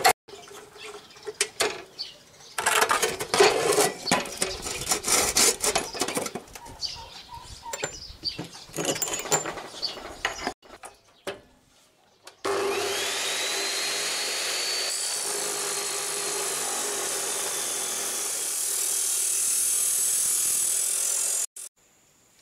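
Power tool cutting steel: irregular bursts of cutting noise with a low hum under them, then, after a short gap, one long steady cut about nine seconds long, with a high whine that rises as it starts and a sudden stop.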